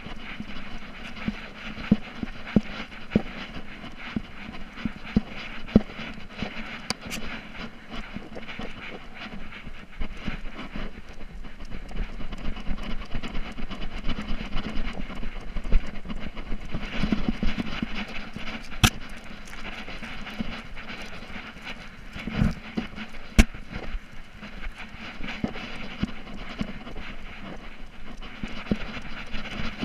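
A GoPro strapped to a moving dog's collar, jostling with its motion: steady rattling and rubbing from the camera and collar, with repeated sharp knocks and clicks, a few louder ones about 19 and 23 seconds in.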